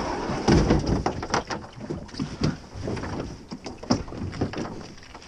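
Plastic kayak hull scraping and knocking over river stones as it is dragged up onto a gravel bar. The irregular clacks and grinding are heaviest in the first second or so and thin out afterwards.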